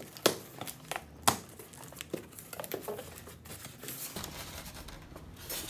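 Packaging being handled during an unboxing: a utility knife slitting packing tape, cardboard flaps rustling and polystyrene packing shifting and creaking. There are scattered crackles and a few sharp clicks, the two loudest in the first second and a half.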